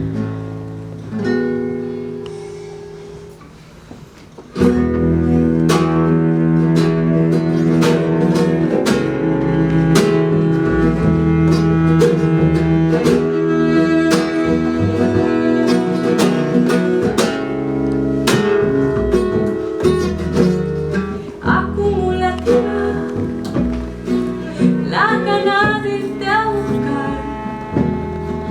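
Live acoustic ensemble music: guitar with a bowed string instrument, starting with quiet held chords and breaking into a loud, full passage of plucked notes about four and a half seconds in.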